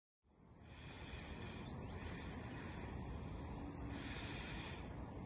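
Outdoor lakeside ambience fading in from silence just after the start: a steady wind rumble buffeting the microphone, with birds singing faintly.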